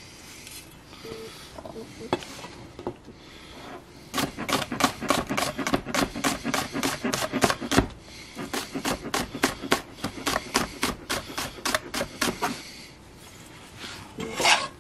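Kitchen knife chopping scallions on a cutting board: a fast, even run of chops at about four a second through the middle, with quieter rubbing and handling of the scallions before it and one louder stroke near the end.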